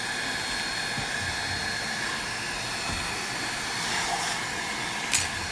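Heat gun blowing steadily, warming the adhesive under a cracked iPad mini digitizer so the glass can be lifted. A light click sounds near the end.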